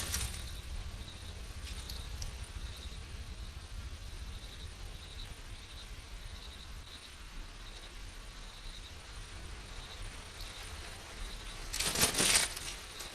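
Short, faint insect chirps repeating irregularly over a low background hum, with a brief loud rustle near the end.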